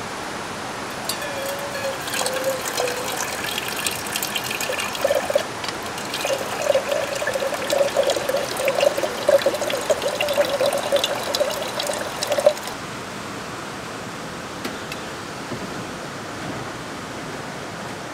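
Water trickling from the spigot of a plastic water jug into a stainless steel percolator coffee pot, starting about a second in and stopping about twelve seconds in. A steady rush of a nearby mountain stream runs underneath.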